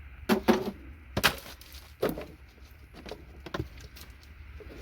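Pieces of circuit-board scrap being handled, giving a run of sharp clicks and clattering knocks, the loudest in the first second or so.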